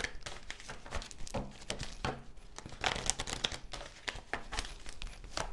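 A deck of tarot cards being shuffled by hand: irregular papery clicks and rustles as the cards slide and knock against each other.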